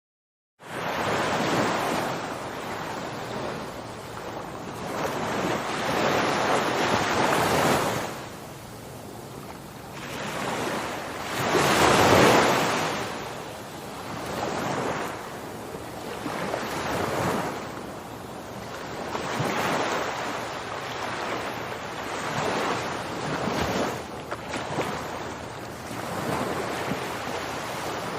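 A rushing sound of moving water that begins abruptly just under a second in, after silence, then swells and ebbs every two to four seconds, like waves breaking.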